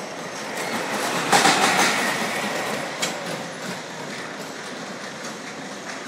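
Roller coaster car running along steel track with a rumbling, rattling wheel noise that swells loudest about a second in as it passes near, then settles to a steady rumble; a single sharp clack about three seconds in.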